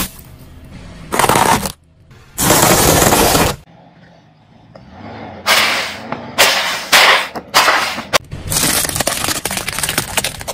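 A car tyre crushing objects in quick succession: several sudden bursts and pops as small containers split under the wheel and spray out, then a dense run of plastic cracking and snapping near the end as toy cars break apart.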